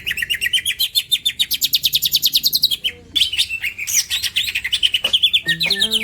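Green leafbird (cucak ijo) singing a fast, continuous run of high chirps, many to the second, with a brief break about three seconds in. Lower, steady tones join near the end.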